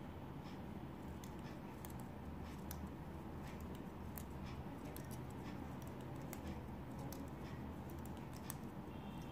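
Irregular light clicks and ticks from a tatting shuttle and thread being handled while double stitches are worked, over a faint low steady hum.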